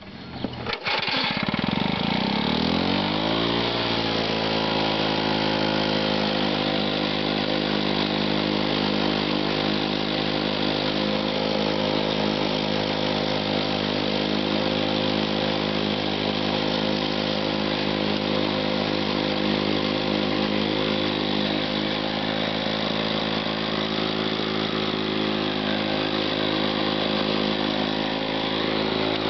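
Lawn-Boy 8229D mower's two-stroke engine catching about a second in and rising in speed over the next few seconds, then running steadily.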